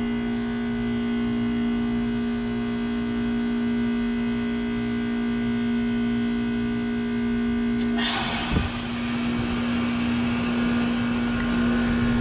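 2004 Goodman CPLJ heat pump in its defrost cycle: the compressor runs with a steady hum, then about two-thirds of the way in a click is followed by a sudden loud rushing hiss of refrigerant as the reversing valve shifts, the hum running on under it.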